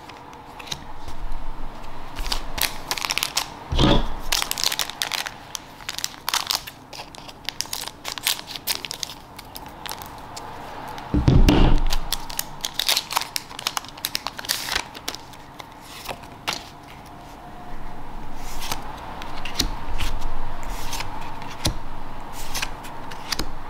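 Foil Digimon Card Game booster pack crinkling and tearing as it is opened, with a dull thump about eleven seconds in. Near the end, quieter rubbing of cards being slid through the hands.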